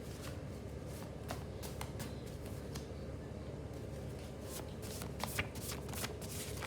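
Tarot cards being shuffled by hand: a run of quick papery flicks and clicks that come thicker in the second half.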